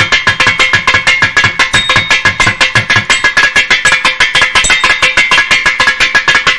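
Thavil drums in a fast solo passage: a dense, even stream of sharp, ringing strokes, about eight to ten a second.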